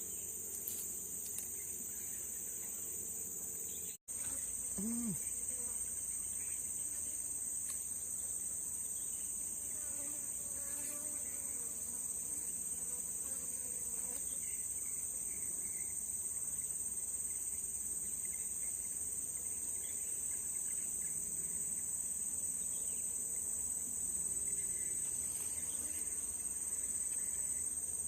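Steady, high-pitched chorus of insects, like crickets, droning without a break; the sound cuts out for an instant about four seconds in.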